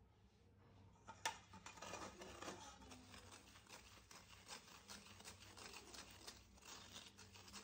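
Faint scraping and rubbing of a spoon pushing powdered sago through a fine stainless-steel mesh sieve, with one light click about a second in.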